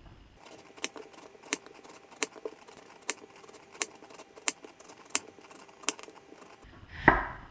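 Chef's knife slicing through an eggplant, each stroke knocking on a wooden cutting board: about ten even chops, roughly one every two-thirds of a second. A louder thump comes near the end.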